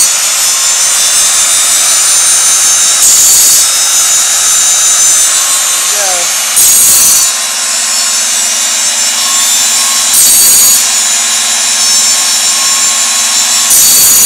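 Homemade automatic bandsaw blade sharpener grinding the band's teeth. A harsh grinding burst comes about every three and a half seconds, one per tooth as the cam indexes the band, over the steady running of the grinding motor.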